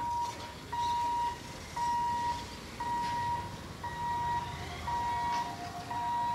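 Electronic warning beeper sounding a steady tone about once a second, with a second, lower tone joining about four seconds in. A low rumble runs underneath.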